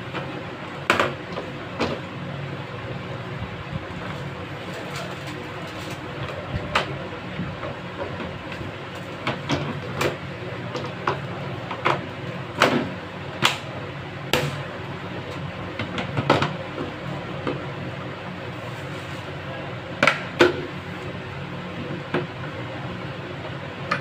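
Sharp plastic clicks and knocks, about ten of them at irregular intervals, as RO purifier filter cartridges are handled and pressed into the clip holders of the plastic frame. A steady background hum runs underneath.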